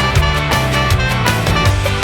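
Upbeat background music with a bass line and a steady drum beat.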